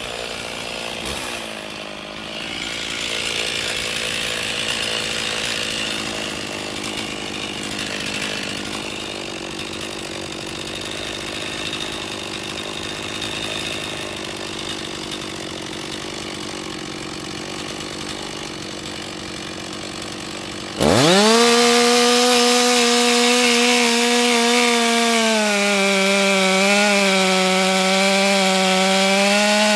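Stihl MS 460 Magnum two-stroke chainsaw with a 32-inch bar and full-skip chain idling. About 21 seconds in it is opened up to full throttle and cut into a large stump, its pitch dipping slightly and wavering under the load of the cut.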